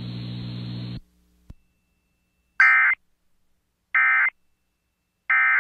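Emergency Alert System end-of-message signal: three short bursts of screechy SAME digital data (the EOM code), about 1.3 seconds apart. They follow about a second of steady hum and hiss that cuts off.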